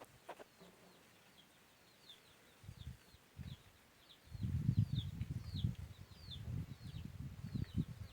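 A small bird calling a steady series of short, high chirps that slide downward, about two a second. A low rumbling noise comes in about four seconds in, louder than the chirps.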